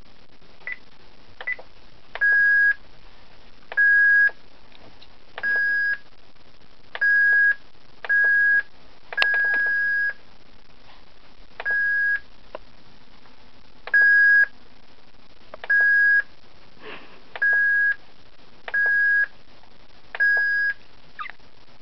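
Fax machine beeping each time its button is pressed: a click, then a steady single-pitch beep of about half a second, repeated about a dozen times at uneven intervals of one to two seconds, one beep held about twice as long.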